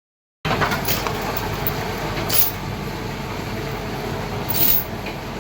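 Steady background noise, loud and even, with two brief hisses, about two and four and a half seconds in.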